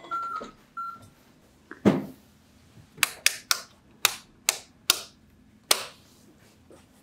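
Plastic wall rocker light switches flipped one after another: seven sharp clicks over about three seconds, coming after a single dull thump about two seconds in.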